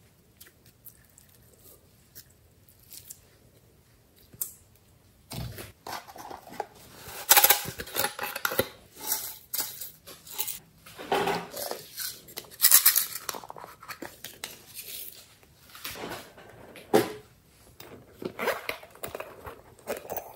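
Close handling sounds of slime play: nearly quiet for the first few seconds while slime is stretched, then from about five seconds in a run of clicks, crackles and rustles from plastic toy containers and a plastic bottle of sequin confetti being shaken over the slime, with several louder sharp peaks.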